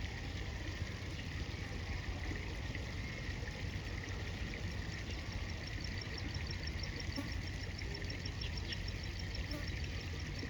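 River water flowing steadily around the angler's position in the current. About halfway through, a faint, regular high-pitched ticking at about four a second joins in.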